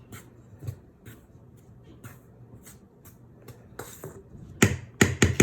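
Dry flour and cornflour being stirred in a bowl: soft, quick scraping strokes, then a few sharp knocks against the bowl near the end.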